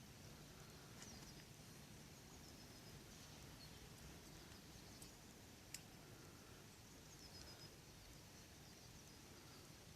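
Near silence: faint outdoor ambience with a few faint, short, high bird chirps and a couple of faint clicks.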